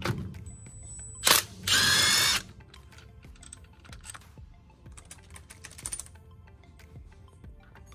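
Impact wrench: a sharp click a little over a second in, then about a second of loud hammering whir as it breaks loose a bearing cap bolt on the Jeep's Dana 27 front differential.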